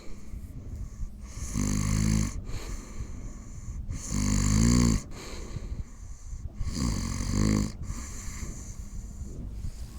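A person snoring loudly: three long snores about every two and a half seconds, over the quieter running of a foot-kneading massage machine.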